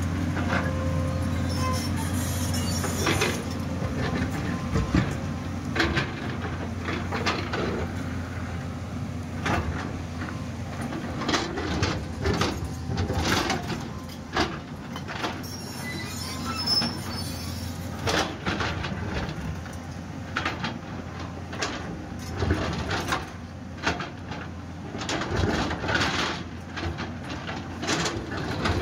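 JCB tracked excavator's diesel engine running under a steady low hum while its steel bucket digs and scrapes into a shaly rock face. There are many sharp clanks and knocks of bucket on rock and loose stones falling. The engine hum is loudest in the first three seconds, and the knocks come irregularly after that.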